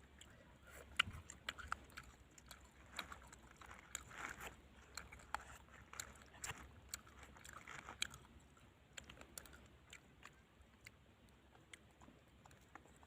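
Faint eating sounds: someone biting and chewing grilled small fish, a scatter of short crisp clicks and crunches at irregular intervals, thinning out near the end.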